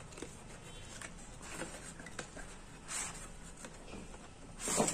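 Cardboard flash-gun box being handled and opened: soft rustles and light taps, with a short swish about three seconds in and a louder sliding scrape near the end.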